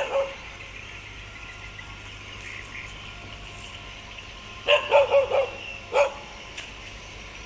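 A dog barks four times in quick succession about two-thirds of the way through, then once more a second later, over a steady low hum.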